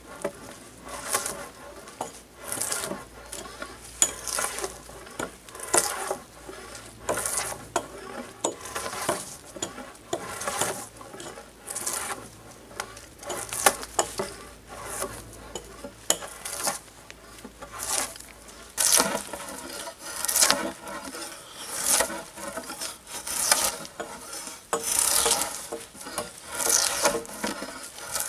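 Drawknife shaving bark off a log, one scraping stroke about every second and a half.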